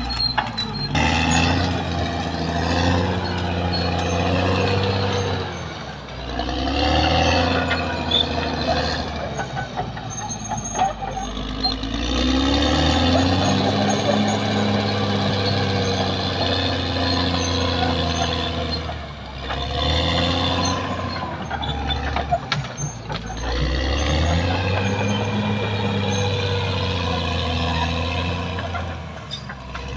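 Caterpillar D6R XL bulldozer's diesel engine working under load, its pitch rising and falling as the engine revs up and drops back several times.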